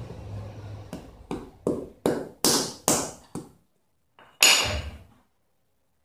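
Hatchet knocking on a plum stone against a hard floor: about seven quick taps, two or three a second and growing louder, then one hard strike with a short metallic ring that cracks the stone's hard shell.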